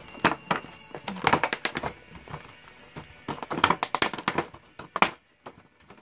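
Thin clear plastic blister tray and bagged figure parts crinkling and crackling as they are handled, in several short bursts. Background music plays faintly underneath.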